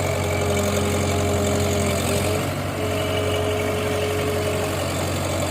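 Combine harvester's engine running steadily, a continuous drone with a steady whine over it.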